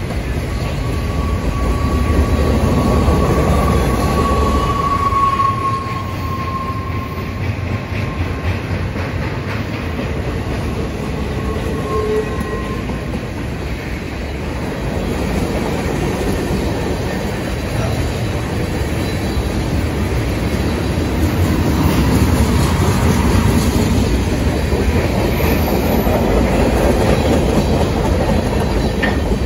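Freight cars rolling past close by: a steady rumble of steel wheels with clickety-clack over the rail joints. A thin high wheel squeal rises out of it for a few seconds near the start.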